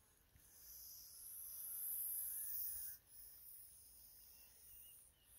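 Bull snake hissing in two long, breathy exhalations of two to three seconds each, with a short break between them: a defensive hiss at a threatening cat.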